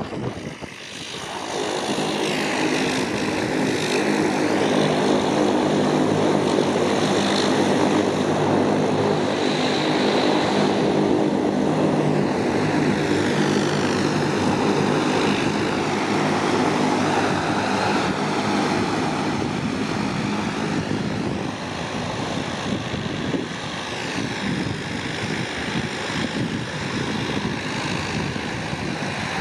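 Dash 8-300's twin Pratt & Whitney Canada PW123 turboprops running as the aircraft taxis close by. A steady propeller drone with a low hum of even tones, rising about a second in and easing a little about two-thirds through.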